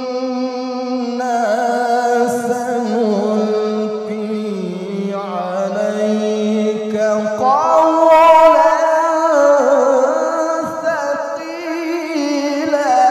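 A man's voice in melodic Quran recitation (tilawah), drawing out long ornamented notes. It holds a lower line at first, then steps up in pitch about halfway through into a louder, higher passage full of quick turns.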